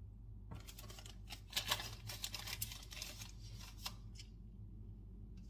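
Packaging rustling and crinkling as bought items are handled, a dense run of crackles that starts about half a second in, is busiest in the middle and dies away about a second before the end, over a faint steady low hum.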